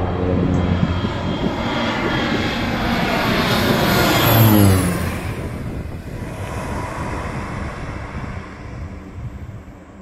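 Crop-duster airplane making a low pass: the engine and propeller drone grows louder, peaks about four to five seconds in with its pitch dropping as the plane goes by, then fades away.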